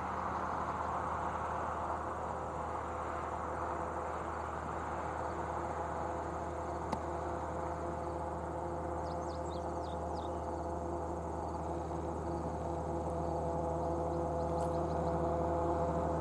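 Double-stack intermodal freight train rolling away on jointless track, a steady low rumble of steel wheels on rail with a constant deep hum underneath. Insects keep up a faint high drone throughout.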